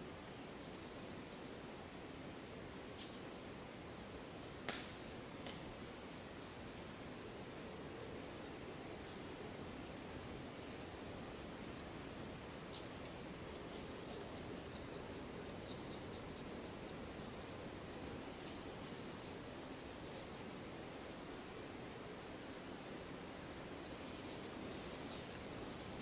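A steady, high-pitched insect chorus that holds two shrill tones without a break. A sharp click about three seconds in and a fainter one shortly after.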